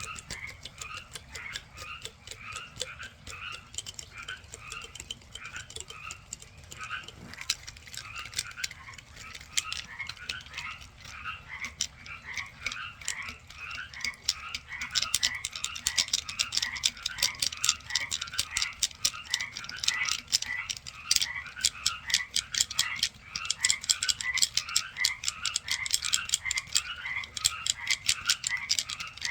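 Frogs calling at night: a steady run of short chirping notes, two or three a second, with a fast clicking call joining in and growing louder in the second half.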